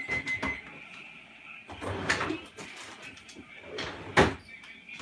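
Things being moved about inside an open refrigerator: scattered clicks and clunks, with a sharp knock about four seconds in.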